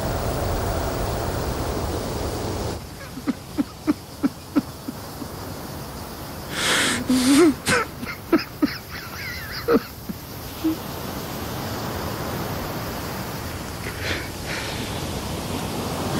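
A car driving past, a steady rushing noise that cuts off about three seconds in. Then a man sobbing with his face in his arm: a quick run of short gasping sobs, a louder drawn-out wail, and more sobs that stop about two-thirds of the way through.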